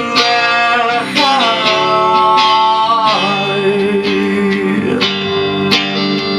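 Live rock band playing: guitars over drums, with a long held melody note that bends up and down in pitch, and sharp drum hits near the end.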